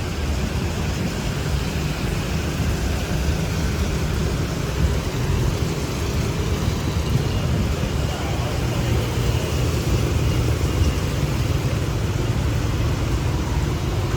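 Steady street traffic noise, the low rumble of motorbikes and cars passing on a city road.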